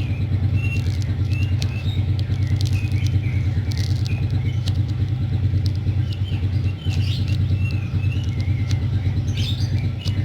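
A steady low rumble throughout, with small birds chirping on and off and a few sharp crackles.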